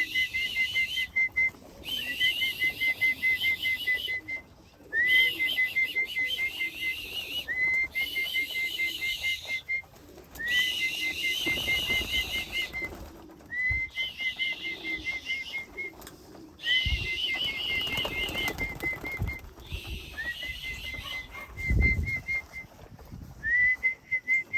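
A person whistling a repeated warbling call to bring homing pigeons in to the loft: about nine short, fluttering phrases on one high pitch, each about two seconds long with brief pauses between.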